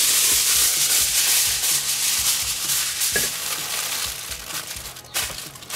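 Aluminium foil crinkling and rustling as it is pulled over a package and pressed and folded around it by hand. It is loudest in the first few seconds and then thins out, with one last sharp crackle near the end.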